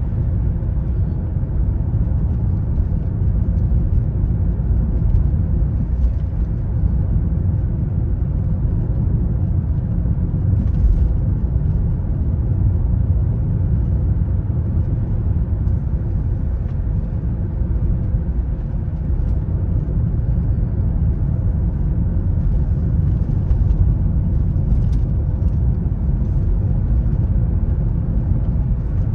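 Car driving along: a steady low rumble of road and engine noise, with a few faint clicks.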